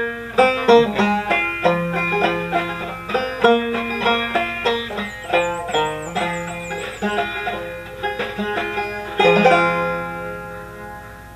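Five-string banjo played clawhammer style: a quick run of plucked notes, ending on a strummed chord about nine seconds in that rings and fades away.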